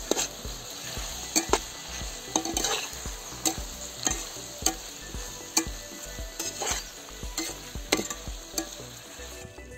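Metal spatula scraping and clinking against a steel kadai again and again as diced potatoes and capsicum are stirred, over a steady sizzle of vegetables frying in oil.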